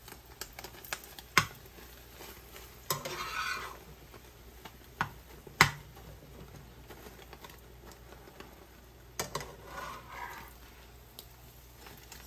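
A metal utensil clinking and tapping against a frying pan several times, with a couple of short bursts of sizzling from food frying in oil.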